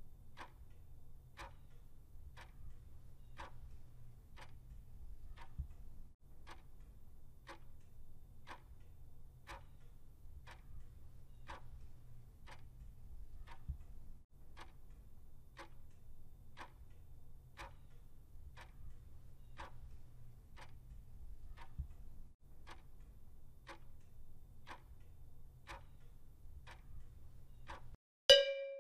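Countdown-timer clock-tick sound effect, one tick a second, counting down the seconds over a faint low hum. Near the end a single louder, short chime sounds as time runs out and the answer is marked.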